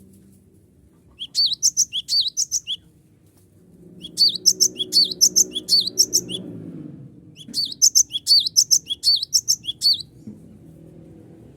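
Cinereous tit (gelatik batu) singing in full voice: three bursts of quick, repeated high notes, each note sliding up and down, with short pauses between bursts.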